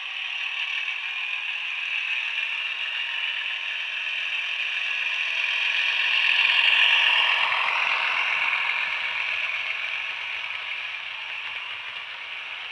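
Bachmann OO-gauge class 37 model locomotive running past, its Howes class 37 sound decoder playing diesel engine thrash through a small onboard speaker, with the running of the model's mechanism on the track. It grows louder, peaks about halfway through as it passes closest, with a pitch drop, then fades.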